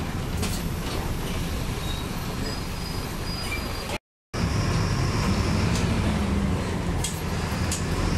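Cabin sound of a Marcopolo Torino city bus under way: steady low engine and road rumble with scattered rattles and clicks from the body. The sound cuts out completely for a split second about four seconds in.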